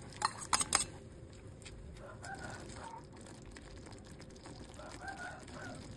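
A metal spoon clinks and scrapes against a small stainless-steel bowl several times in the first second as cornstarch slurry is tipped into simmering chili sauce in a pan. The pan then simmers quietly, with a few faint ticks and two faint short calls in the background.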